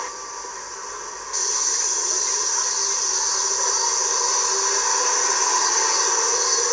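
Steady high-pitched hissing noise that cuts in abruptly about a second and a half in, over a fainter wavering murmur.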